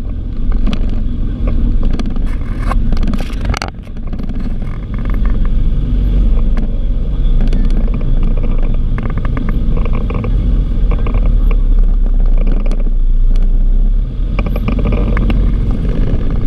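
Loud, steady low rumble of a motor vehicle, with scattered clicks and knocks.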